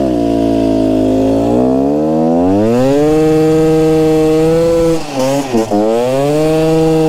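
KTM 300 two-stroke motorcycle engine running under way: its note drops over the first second and a half, climbs and holds high, dips briefly about five seconds in, then climbs back and holds.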